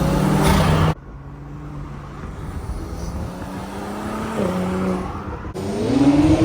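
A car engine running in edited clips. It is loud at first and stops abruptly about a second in, then comes back quieter and steady, and after another abrupt cut near the end it revs up and falls back.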